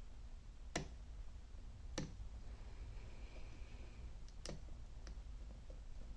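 Assa 700 pin-tumbler lock clicking as it is picked: three sharp clicks and a few fainter ticks as the pins move and set under the pick and tension.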